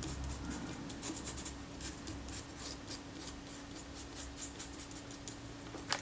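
A cloth rubbing and scratching over the back of a piece of camera leatherette, wiping it clean with naphtha, in a string of faint quick scrapes. A faint steady hum runs underneath, and there is a sharper click near the end.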